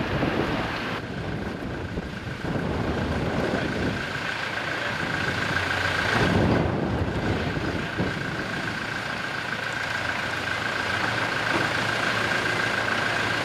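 An engine idling steadily, with a steady high-pitched whine over it.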